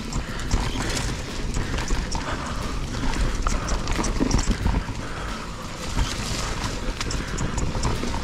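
Canyon Strive full-suspension mountain bike rolling over a rocky trail: an irregular clatter of knocks and rattles from tyres, chain and frame over a steady low rumble.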